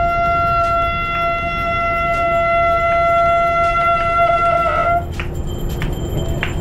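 A conch shell (shankh) blown in one long steady note that wavers briefly as it cuts off about five seconds in.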